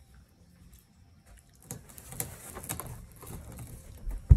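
Rustling and scattered clicks of movement and handling that begin a couple of seconds in as a man gets up from his chair, then one loud low thump near the end.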